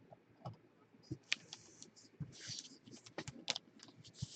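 Trading cards and card pack wrappers being handled: scattered sharp taps and clicks with short bursts of rustling, the longest about two seconds in and another near the end.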